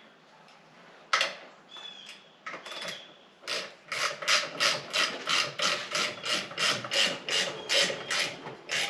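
Ratchet wrench clicking as it tightens an alternator mounting bolt. A few scattered clicks come first, then from about three and a half seconds in a steady run of about three clicks a second.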